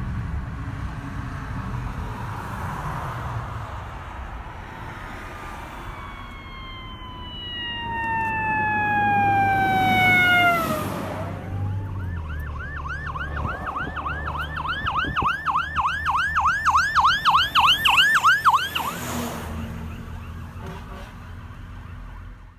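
Fire truck siren responding to a call: a long wail falling slowly in pitch, then a fast yelp of about three rises a second. It is heard from inside a car, over the car's steady low road rumble.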